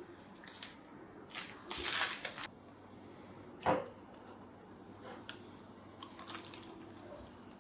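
Objects being handled: a few light clicks and rustles, a short scraping rustle about two seconds in, and a single sharper knock a little later, over a faint steady high whine.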